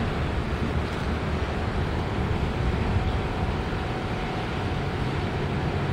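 Wind rumbling on the microphone, with a faint steady hum from a distant engine coming in about two seconds in and fading again.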